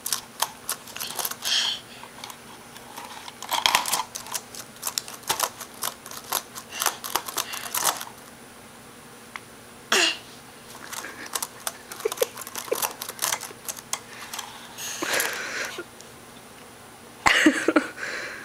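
A baby slapping and tapping at an HP laptop's keyboard: bursts of quick plastic key clicks with short pauses, and a few louder knocks, the loudest near the end.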